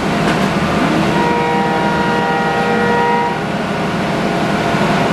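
Haas ST-30 CNC lathe running: a steady mechanical hum, joined from about a second in until just past three seconds by a steady motor whine that then stops.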